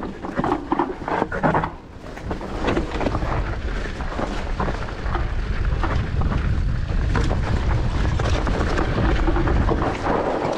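Wind buffeting the helmet or bike camera's microphone as a mountain bike runs down a rough trail, with the frame and components rattling and knocking over the ground. The rush sets in steadily about two seconds in.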